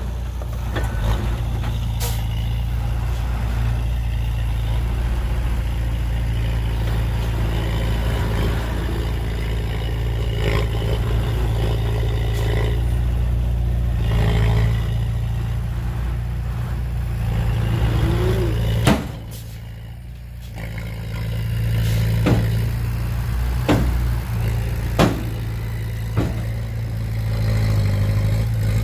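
Heavy diesel engine of earthmoving machinery (bulldozer or dump truck) running steadily, with sharp metallic clanks and knocks now and then. The engine briefly drops in level right after the loudest clank, about two-thirds of the way through.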